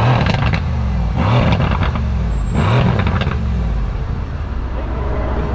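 A car engine revved in three short blips about a second and a half apart, over a steady low idle rumble that carries on through the rest.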